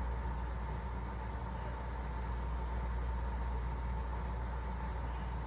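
Steady low background hum with hiss and a faint steady high tone, unchanging throughout.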